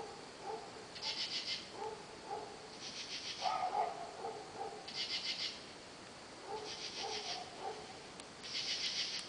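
Dogs barking on and off in short clusters of barks. Between them, a higher rasping call comes in half-second bursts about every two seconds.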